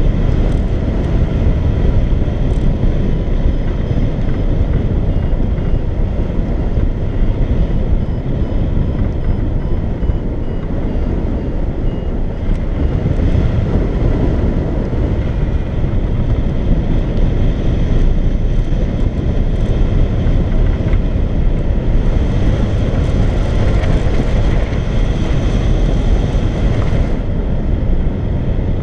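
Steady wind rushing over the microphone of a camera mounted on a hang glider in flight, with faint steady tones above it.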